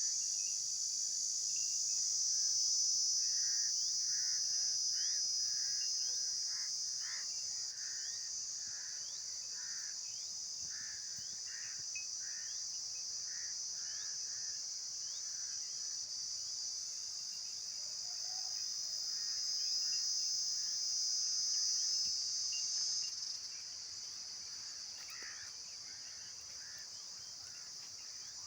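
Dense insect chorus: a steady, high-pitched buzzing trill, with softer, shorter chirps repeating lower down. The buzz drops a little in level near the end.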